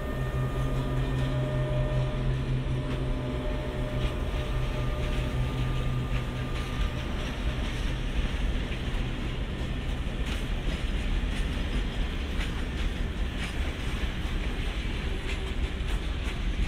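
Slovenian Railways class 363 electric locomotive passing with a steady low hum, then a train of tank wagons rolling by. The wagons' wheels rumble and click over the rail joints, and the clicking grows busier from about halfway through.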